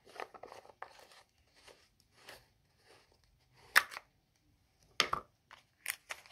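Small plastic jar of facial pads being opened by hand: light rustling and scraping as the lid comes off, then a few sharp clicks and crinkles from about four seconds in as the inner seal is peeled away.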